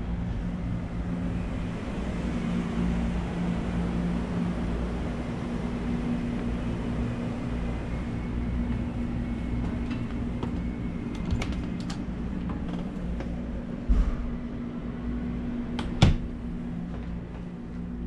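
A steady low mechanical hum with a faint hiss. A few light clicks and knocks come in the second half, and near the end there are two sharper thumps, the second the loudest.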